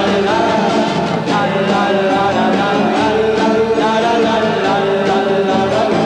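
Live band music with a steady beat.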